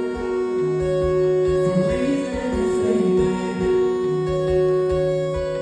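Music: a slow song passage of long held chords, with a sung or melodic line that wavers in pitch through the middle.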